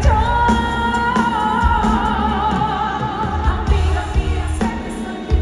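A female pop singer holds a long, wavering high note over a live band with drums and bass for the first three seconds or so, then sings on. The sound is heard from the audience in a concert hall.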